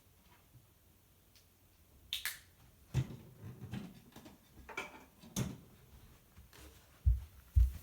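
Plastic Lock Stars toys being handled, giving scattered short clicks, rattles and knocks from about two seconds in, with two low thumps near the end.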